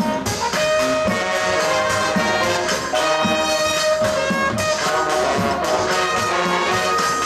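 High school marching band playing its field show: the brass section, with trumpets and trombones, holds chords and moves between them over the beat of the drums.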